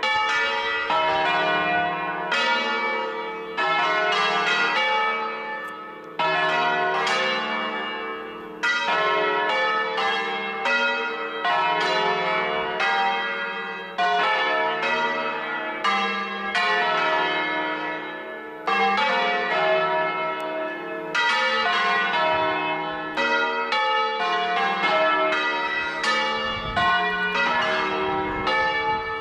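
Church bells ringing a peal: several bells of different pitch struck in turn, each stroke ringing on and dying away, with the round starting afresh about every two and a half seconds.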